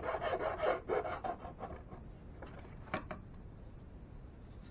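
Quick back-and-forth strokes of a hand file rasping the edge of a thin wooden sail piece, about five strokes a second, dying away about two seconds in. A single sharp tap follows about a second later.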